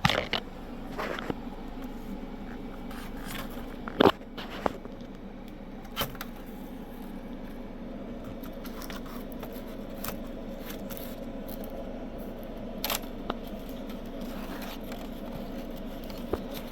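Scattered light clicks, taps and scrapes of handling a laptop keyboard and its ribbon cable while seating the cable into the zero insertion force connector, the sharpest about four seconds in. A steady faint hum runs underneath.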